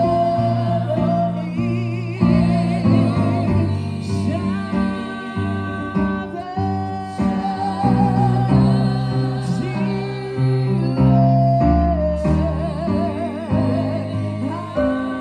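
Gospel worship song being sung with a band: voices holding long melody notes with vibrato over guitar, steady bass and held chords.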